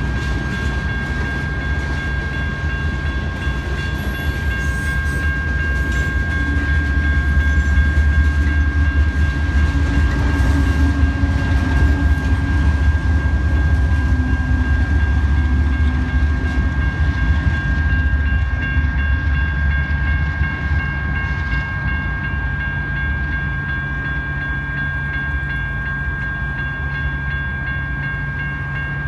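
Freight train rolling through a grade crossing: tank cars rumble past, then a BNSF GE ES44DC diesel locomotive in the consist passes with a louder engine drone from about six to eighteen seconds in. Electronic crossing bells ring steadily throughout.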